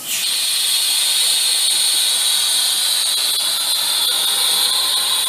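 Compressed air venting from a Sullair portable air compressor: a loud, steady hiss that comes on suddenly and keeps going.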